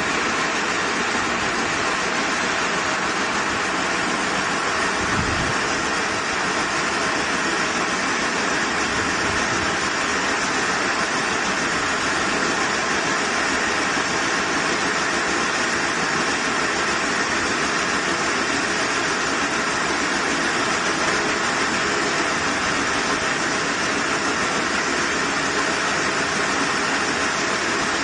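Small round silage baler running: its chain-driven roller chamber and feed conveyor make a steady, continuous mechanical noise while dry crop stalks are fed in.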